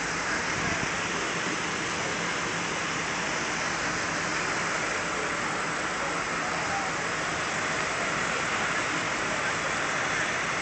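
Heavy rain falling, a steady rushing hiss.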